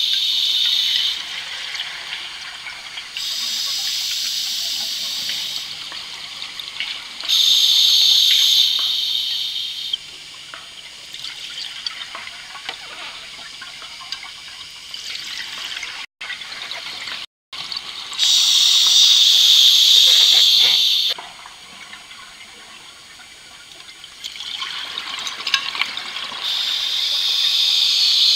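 A scuba diver breathing through a regulator, heard through an underwater camera housing: bursts of hissing, bubbling exhaust every few seconds, with a longer quieter stretch in the middle.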